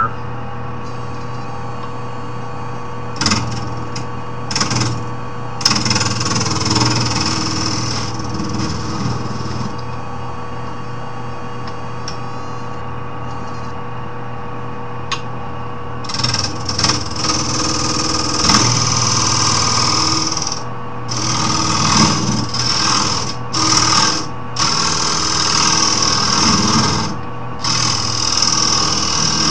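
Wood lathe motor running steadily while a turning tool cuts the spinning wood. The cutting is a hissing scrape that comes and goes in passes: a few short ones early on, a longer stretch from about six to nine seconds in, then an almost continuous run through the second half.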